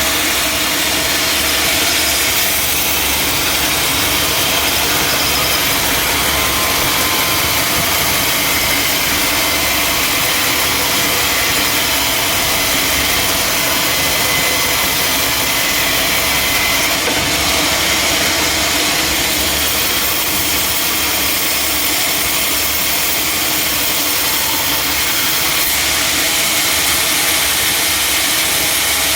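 Sawmill machinery running steadily, a continuous engine drone with a hiss that does not change.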